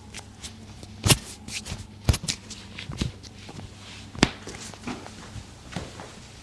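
Hands-on chiropractic treatment: a series of irregular sharp clicks and softer taps, the four loudest roughly a second apart, over a steady low hum.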